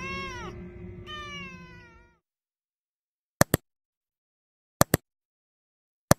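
Orange-and-white kitten giving two drawn-out meows over a steady low hum during the first two seconds. Then silence, broken by three double mouse-click sound effects about a second and a half apart.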